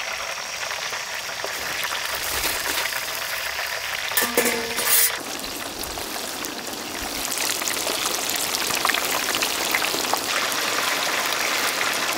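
Whole chickens deep-frying in a large pot of hot sesame oil: a steady, even sizzle of bubbling oil. About four seconds in, a brief louder sound lasts under a second over the sizzle.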